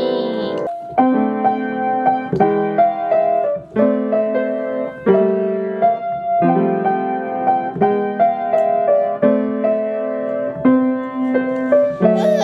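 Piano being played: a slow tune in chords, each new note or chord struck clearly and left to ring.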